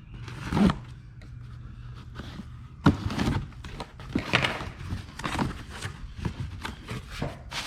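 Rummaging through a box of junk: irregular knocks, thunks and rustling as objects are moved and handled, with one sharp knock about three seconds in.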